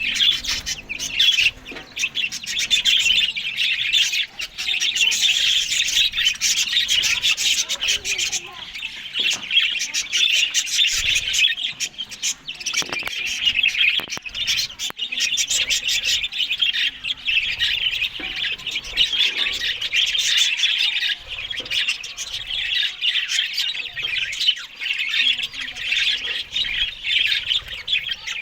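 Budgerigars chattering continuously, a dense high-pitched warble of chirps.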